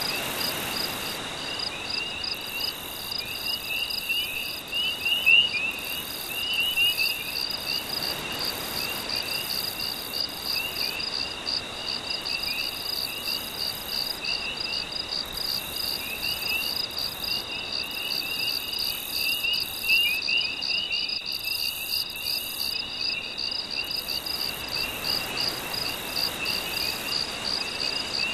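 A steady night chorus of crickets and other insects: a constant high tone, a fast pulsing trill and lower chirping trills, all running without a break. Gentle waves wash in faintly underneath, swelling a few times.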